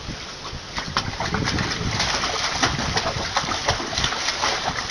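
Water splashing and sloshing in a plastic tub as a German shepherd puppy paws and stamps about in it, a continual patter of splashes.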